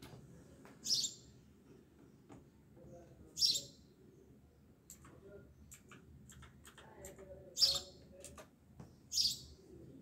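A bird chirping four times in short, high calls a few seconds apart, with a few faint clicks between them.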